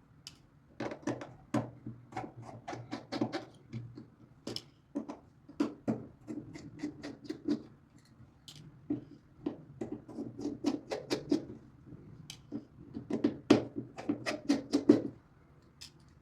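Small screwdriver working tiny screws out of a phone's inner cover: clusters of quick, light clicks and ticks, with short pauses between the clusters.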